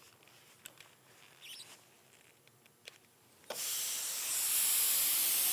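Quiet room tone with a few faint clicks, then about three and a half seconds in a plasma cutter's compressed air hisses on suddenly and runs as a steady high hiss, with a faint hum rising slowly in pitch beneath it.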